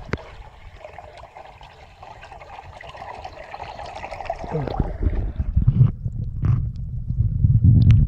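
Shallow forest stream trickling, heard in the air. About five seconds in, the microphone goes under the water and the sound turns to a muffled, uneven low rumble of water moving against it.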